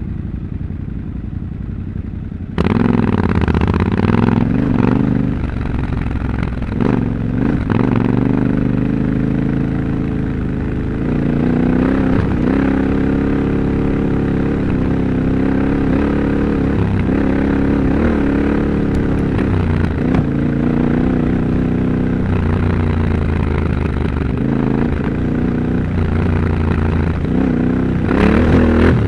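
Yamaha Ténéré 700 Extreme's 689 cc parallel-twin engine, ridden off-road, its revs rising and falling with the throttle. It is quieter at first, then suddenly louder about two and a half seconds in, with a few short knocks along the way.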